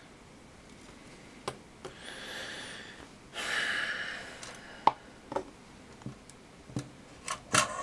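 Two soft breaths close to the microphone, about two and three and a half seconds in, the second the louder, with a few light clicks and taps of tools being handled on a workbench.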